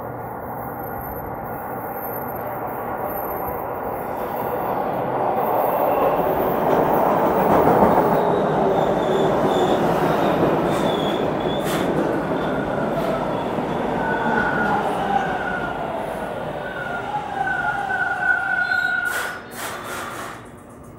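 TTC T1 subway train pulling into the station. The rumble of the passing cars builds to its loudest about eight seconds in, then the brakes and wheels squeal in high, wavering tones as the train slows to a stop, with a few sharp clicks near the end.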